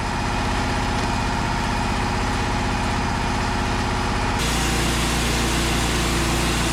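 Wood-Mizer portable band sawmill running steadily on its engine. About four seconds in the sound changes abruptly to a brighter, hissier one, the band blade cutting through a hickory log to take off a slab.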